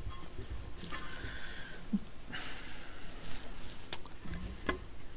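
Hands handling a turntable: a few light clicks and taps and a short rubbing rustle as the rubber mat is set down onto the aluminium platter.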